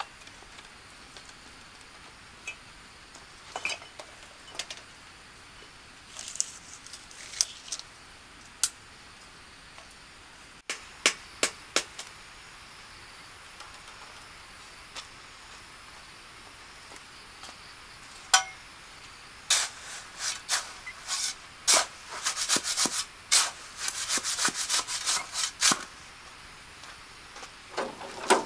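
Sharp taps and knocks of hand work, scattered at first and then coming in a quick, dense run for several seconds in the second half, over a steady background hiss.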